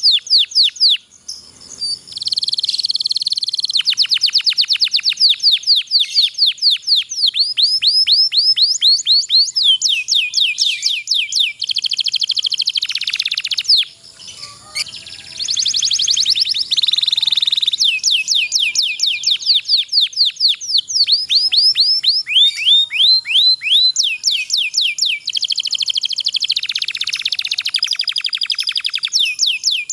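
Domestic canary singing long, fast rolling trills of rapidly repeated high notes, switching from one trill to the next. There are two short breaks, about a second in and about halfway through.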